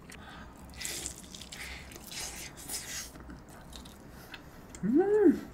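A person chewing a mouthful of braised pork rib meat with wet, smacking mouth sounds in the first three seconds, then a short hummed "mmm" of enjoyment that rises and falls in pitch near the end.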